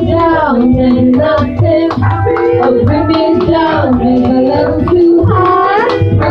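Small live band playing a pop song: two women singing together over electric guitars and a Korg keyboard, with hand claps on the beat.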